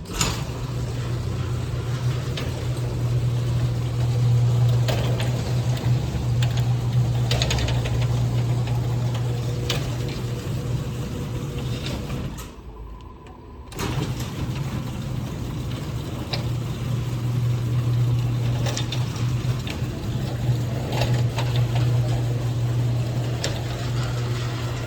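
Electric garage door opener motor running the door, a steady low hum with light rattling and clicking from the door and rail, on its freshly lubricated rail and trolley. It runs for about twelve seconds, stops for about a second, then starts again and runs to the end.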